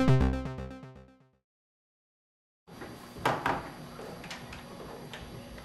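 A short musical chord sting fading out over about a second, then a gap of complete silence, then steady room noise with a couple of sharp knocks about halfway through.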